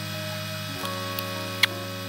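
Soft background music with sustained chords, changing about a second in, over a few light clicks of small metal tools on the phone; the sharpest click comes about one and a half seconds in.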